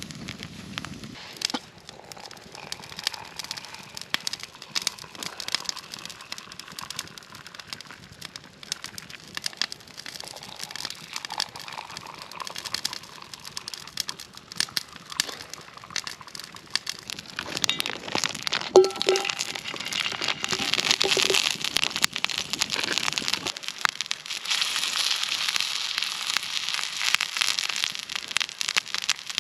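Wood campfire crackling and popping. About two-thirds through, a steady hiss joins and grows louder.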